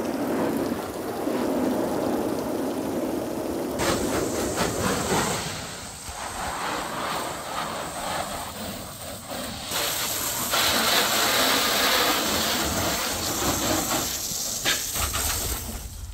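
Garden hose spraying water onto a fabric-covered light airplane, a steady hiss of spray and water spattering on the wing and fuselage. The sound shifts abruptly twice, about four and ten seconds in.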